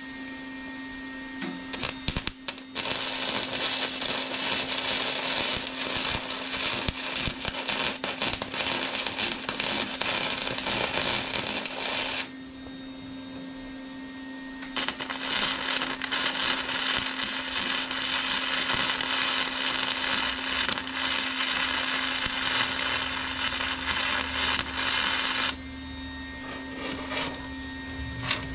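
Lincoln Pro MIG 140 flux-core wire welder arc crackling in two long runs of about ten seconds each, with a brief stop-start sputter just before the first run and a few short bursts near the end. A steady hum runs underneath.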